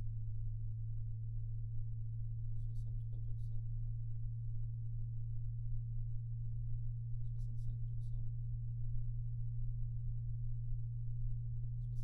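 Arctic P120 PWM 120 mm PC case fan running at 60% PWM duty, about 1,310 rpm. It makes a steady low hum with a rumble underneath.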